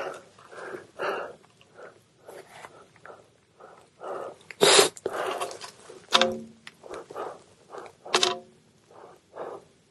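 A climber's hard, rhythmic breathing at altitude, about two breaths a second, with a few sharper, louder puffs.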